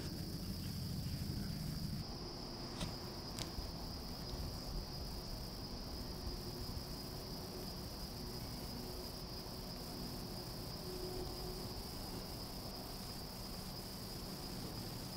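Steady high-pitched drone of an insect chorus, with two faint clicks close together about three seconds in.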